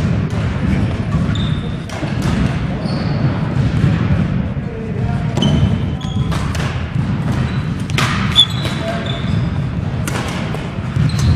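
Badminton rally on a wooden gym floor: sharp racket strikes on the shuttlecock every second or two, with short high shoe squeaks and footfalls on the floor.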